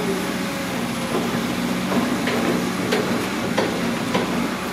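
Caterpillar 320D long-reach excavator's diesel engine running steadily as the boom works the bucket, with several sharp knocks from about two seconds in.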